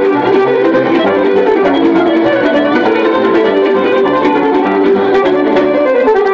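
Moldovan folk dance music, a fiddle leading with quick runs of notes over a plucked-string accompaniment, playing steadily.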